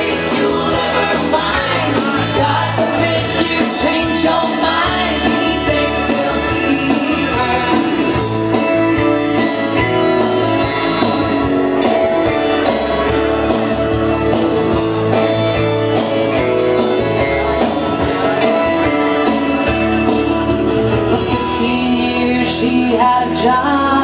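A song playing loud: a singer over full backing music, running without a break.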